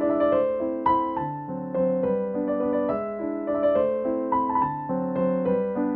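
Background music: a gentle piano melody with chords, the notes changing about every half second.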